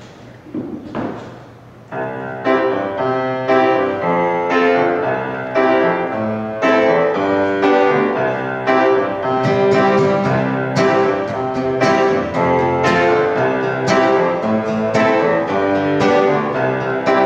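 Grand piano playing a steady run of chords, starting about two seconds in.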